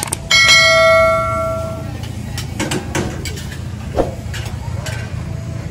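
A click and then a single bright bell-like chime that rings out and fades over about a second and a half: the sound effect of a YouTube subscribe-button animation. It plays over steady outdoor market background noise, with a sharp knock later on.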